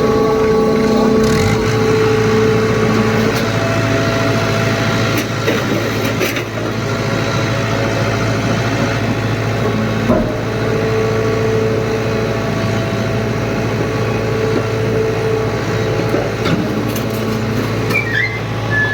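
Hydraulic scrap baler running: a steady mechanical hum with a higher pump whine that comes and goes. A brief wavering squeal near the end.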